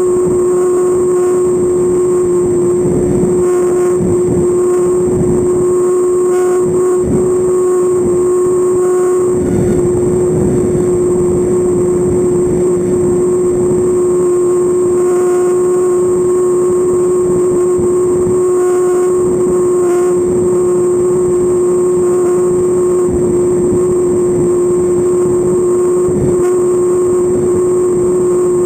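Model airplane engine on a Tower Hobbies .40 trainer in flight, running at a steady throttle as one constant drone that holds its pitch, heard close up from beneath the plane, with rushing air noise underneath.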